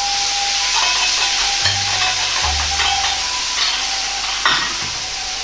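Sauce of soy sauce, oyster sauce, sake and sugar poured into a hot wok of stir-fried minced pork, green pepper and onion, sizzling hard as it hits the pan, with a single knock near the end.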